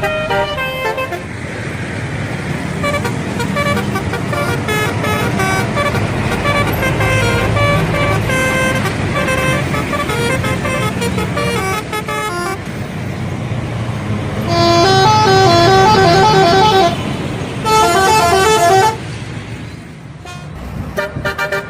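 Bus telolet horn playing quick stepped multi-note melodies over the low rumble of a bus engine. Two louder melodic blasts come in the last third, each stopping abruptly.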